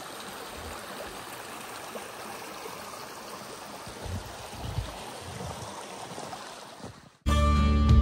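Steady rushing of a flowing stream. Music cuts in suddenly near the end.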